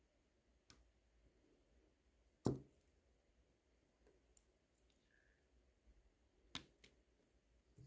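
A few small, sharp clicks in near silence, the loudest about two and a half seconds in and another near the end: small tools touching parts of a Miyota 8215 watch movement as it is assembled.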